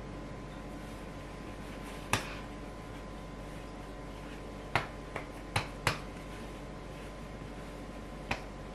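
Bread dough being kneaded by hand on a floured wooden board: sharp slaps and knocks against the wood, one about two seconds in, a quick run of four around the middle, and one more near the end, over a steady background hum.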